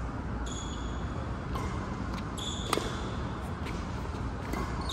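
Badminton rally: shoes squeaking sharply on the court several times, with one crisp racket hit on the shuttlecock a little past halfway.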